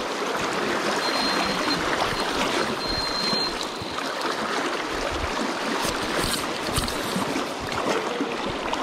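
River water rushing steadily over a shallow riffle, with a few short sharp sounds about six to seven seconds in.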